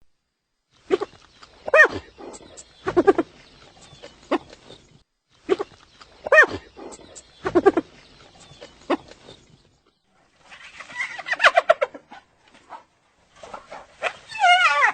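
Hyena calling in its laughing manner: bouts of short pitched cackles and yelps separated by pauses, with a faster run of quivering, rising and falling giggles near the end.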